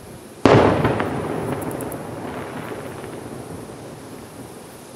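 A distant aerial fireworks shell going off with a single loud boom about half a second in, which rolls and echoes away over several seconds, with a few faint crackles after it.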